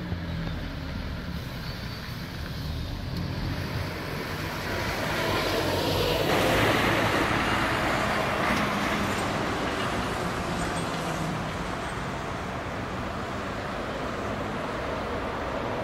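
Scania Citywide 12LF city buses driving past with their engines running, over steady traffic noise. About six seconds in, the engine and road noise grows louder and then holds steady as a second bus approaches.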